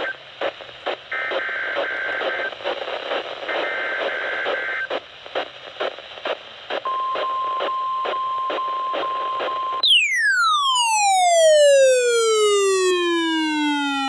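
NOAA Weather Radio emergency alert over radio static crackle: three short warbling SAME data bursts about a second apart, then the steady single-pitch 1050 Hz weather alert tone for about three seconds. About ten seconds in the static cuts out and a loud falling glide with many overtones takes over, dropping steadily from very high to low over about four seconds.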